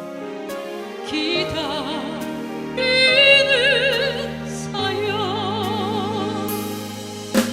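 Music: a pop-opera voice sings long held notes with wide vibrato over instrumental accompaniment.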